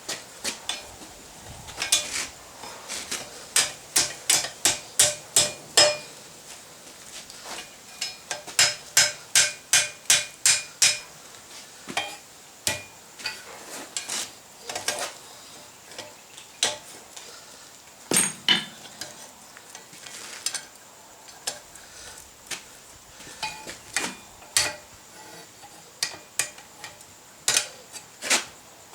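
Blacksmith's hammer striking steel stock on an anvil in runs of quick blows, about three a second, with pauses between runs; each blow rings briefly.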